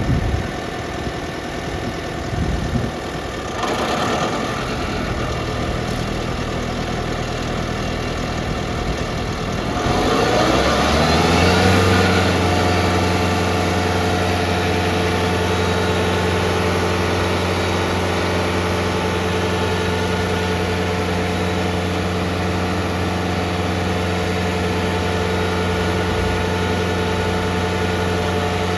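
Vermeer SC60TX stump grinder's engine running at low speed, then about ten seconds in revving up over a couple of seconds to a steady high-speed run with a strong even drone.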